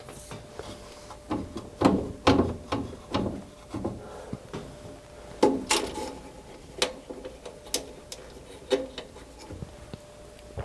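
Irregular clicks, knocks and short scrapes of tools and metal furnace parts being handled while the draft inducer assembly is taken apart. A faint steady hum lies underneath.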